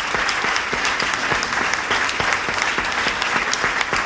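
A large congregation applauding, steady dense clapping.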